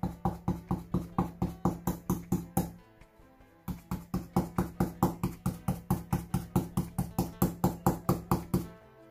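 Stencil brush pouncing black acrylic paint through a plastic stencil onto a wooden board: quick, even taps about five a second, pausing briefly about three seconds in before going on.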